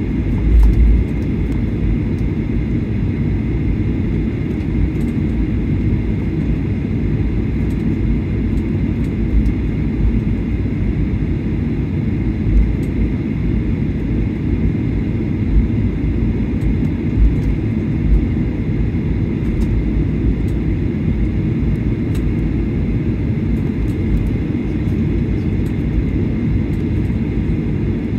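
Cabin noise of a Boeing 737-800 taxiing: a steady low rumble from its CFM56 engines at taxi power and the rolling wheels, with a faint steady whine and a few soft thumps.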